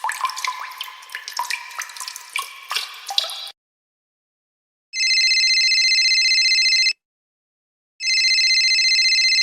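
A quick run of water drops plinking for about three and a half seconds. Then, after a short silence, a telephone rings twice, each ring a steady ring of about two seconds with a second's pause between.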